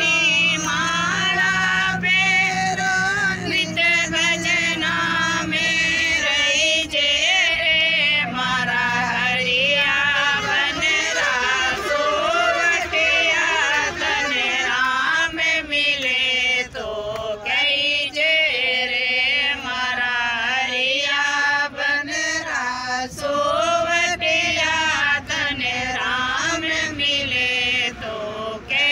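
A woman singing a devotional song (bhajan) with no accompaniment that the material shows; her long, wavering held notes glide and turn continuously.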